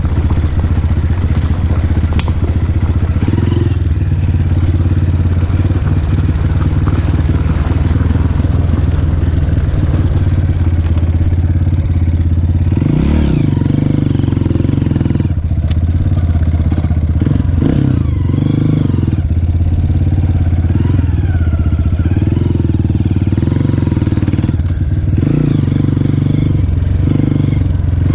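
Honda CRF230F dirt bike's air-cooled single-cylinder four-stroke engine running while being ridden. The note holds mostly steady and dips and climbs back a few times with the throttle, once around the middle, a few seconds later and again near the end.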